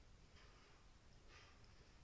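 Near silence: faint room tone with a couple of soft, barely audible rustles.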